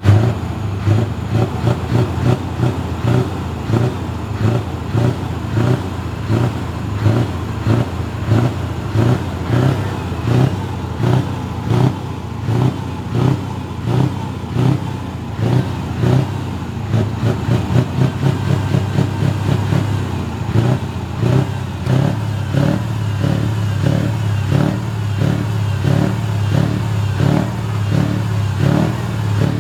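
Scania V8 diesel truck engine revved in short throttle blips, about one a second, settling into a steadier run near the end.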